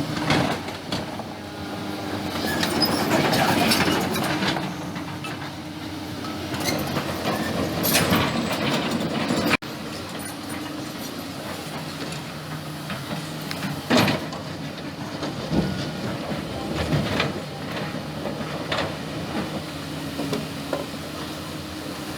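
Excavator's diesel engine running steadily as it digs river stones, with stones knocking and clattering in the bucket now and then.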